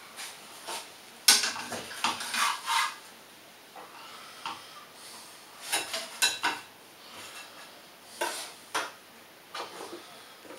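Frying pan and kitchenware clattering: a metal pan knocking and scraping against the electric hob and a ceramic plate as a thin omelette is slid out of it onto the plate. There is a run of sharp knocks, the loudest about a second in, with more clatters spread through the rest.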